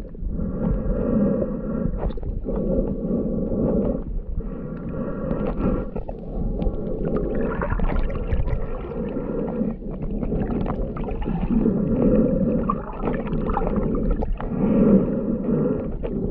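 Muffled underwater sound of shallow water surging and gurgling, heard through a GoPro's waterproof housing, swelling and easing every few seconds.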